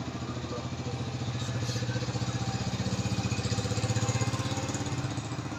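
A motor running with a fast, even pulsing hum that swells and then fades near the end.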